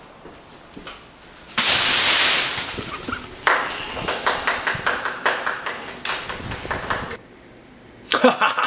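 A paper wall being burst through: a sudden loud rip of tearing paper about a second and a half in, then several seconds of irregular sharp crackles and rustles that stop abruptly.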